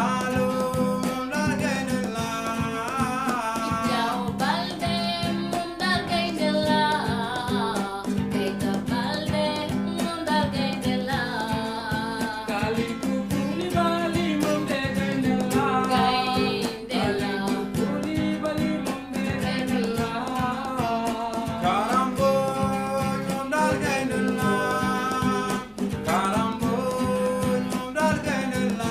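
A voice singing long, wavering lines over acoustic guitar accompaniment.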